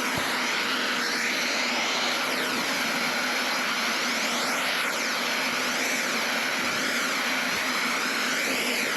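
A handheld electric power tool runs steadily while it works the boat's surface during repair prep. Its motor keeps a constant hum, with a whooshing sound that keeps shifting as the tool moves.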